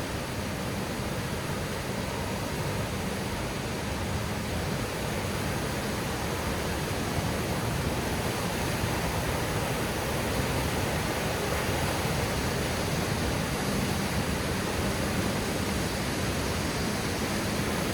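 Steady rush of fast, powerful water pouring and churning over rocks and boulders.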